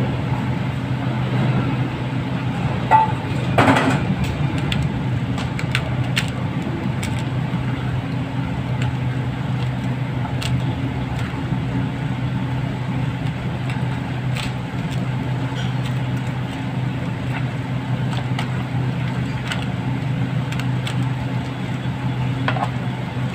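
A steady low hum throughout, with scattered clicks and a brief louder clatter about four seconds in, from a metal bowl and hands working floured raw chicken in a steel tray.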